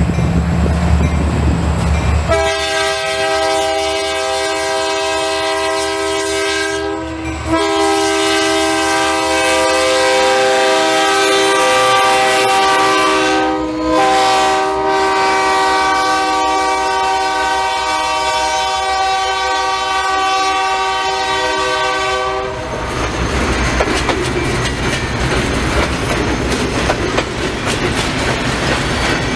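Freight train pulled by EMD GP-series diesel locomotives passing close by: a low engine rumble, then the lead locomotive's multi-tone horn sounding in long blasts for about twenty seconds, broken briefly twice. After the horn stops, the loaded double-stack container cars clatter past over the rail joints.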